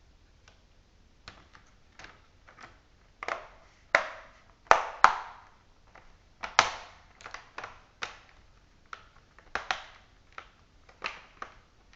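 Small screwdriver driving screws into a laptop's plastic chassis and motherboard: irregular clicks and short scrapes, the loudest a few around four to seven seconds in.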